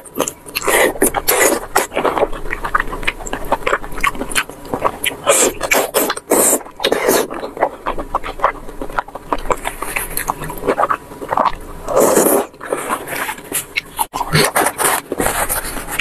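Close-miked wet chewing and sucking of sauce-coated, fatty pork mesentery (jiguanyou): a dense, irregular run of sticky mouth clicks and smacks, with a louder slurp about twelve seconds in.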